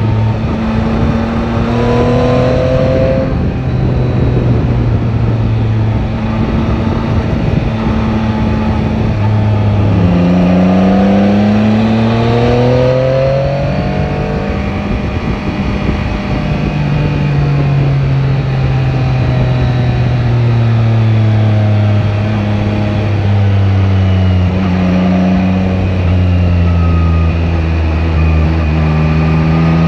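Yamaha Tracer 9 GT's three-cylinder engine under way, its revs climbing, dropping back and climbing again several times as the bike accelerates and shifts, with a steadier stretch near the middle before it picks up again near the end.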